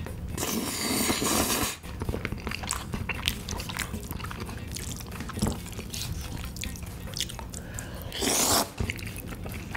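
Close-miked eating: a long slurp of cream spaghetti about half a second in, then wet chewing with many small clicks, and another short noodle slurp near the end.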